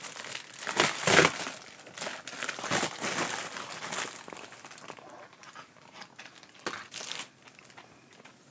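Shipping package being opened: packaging crinkling and tearing as it is cut and pulled apart. The sound is loudest in the first few seconds, then thins to faint rustles and a couple of clicks.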